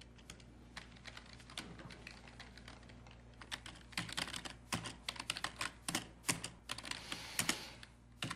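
Typing on a computer keyboard: irregular key clicks, sparse at first, then quicker and louder from about four seconds in, over a steady low hum.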